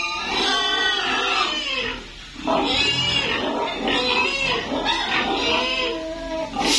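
Pigs calling in a pen, overlapping high-pitched squeals and lower calls, with a short lull about two seconds in.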